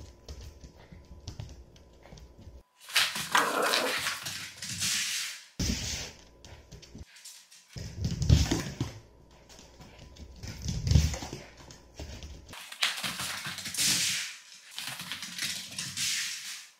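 Mame Shiba Inu playing with a rolling toy ball, in several short loud stretches of scuffling and knocking that start and stop abruptly; the loudest knock is about halfway through.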